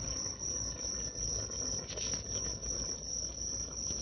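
A steady high-pitched insect trill over a low, uneven rumble, with a few faint ticks.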